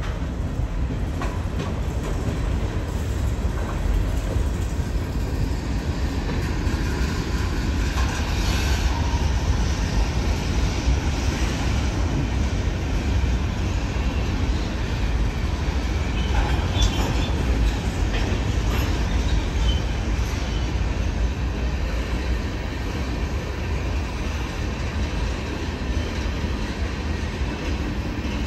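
Freight train cars (covered hoppers and tank cars) rolling past, steel wheels on rail: a steady low rumble with occasional clicks and clanks.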